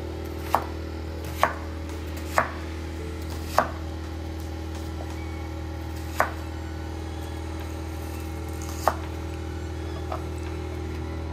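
A kitchen knife cutting through onion and knocking on a cutting board: seven separate sharp knocks, unevenly spaced and a second or more apart, over a steady low hum.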